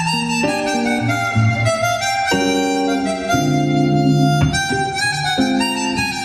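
Chromatic harmonica playing a slow jazz ballad solo in long held notes, over electric guitar chords.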